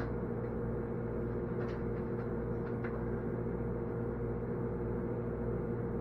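Countertop microwave oven running mid-cook: a steady hum, with a few faint ticks about two seconds in.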